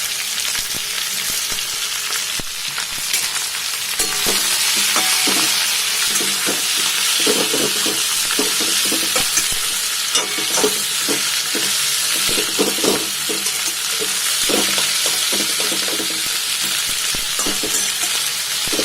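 Sliced onions sizzling in hot oil in a kadhai, being fried, with a spatula stirring and scraping them in irregular strokes. The sizzle grows louder about four seconds in.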